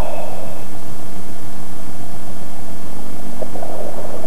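A helmeted diver's breathing heard over the dive communication line: a rush of breath at the start and another near the end, over a steady electrical hum.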